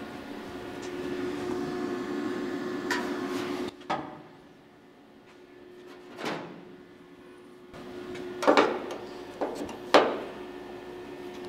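Scattered knocks and clicks of metal and hand tools being handled against a car's sheet-steel roof gutter while it is fitted, with a few sharper knocks near the end, over a steady background hum.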